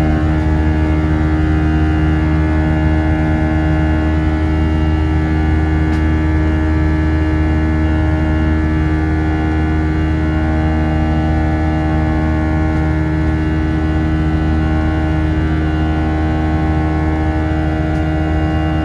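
Airbus A319's CFM56 turbofan engine at climb power, heard from inside the cabin beside the engine. It makes a loud, steady drone carrying the engine's buzzsaw, many steady pitched tones stacked together over a deep hum.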